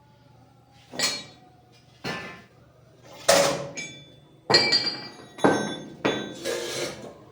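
Hammer striking steel angle iron about seven times, each blow sharp with a metallic ring, coming faster near the end: straightening the angle for a window frame.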